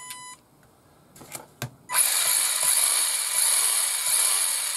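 Arrma Granite Grom RC truck's electric motor and gear drivetrain whirring for about three seconds, its wheels spinning freely off the ground under throttle, starting about two seconds in. Just before that, the speed controller's steady power-on beep ends right at the start, followed by a few light clicks.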